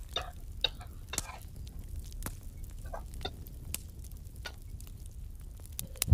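Metal ladle stirring food in a steel pot over a small wood fire: scattered clinks and short scraping squeaks over a low steady rumble.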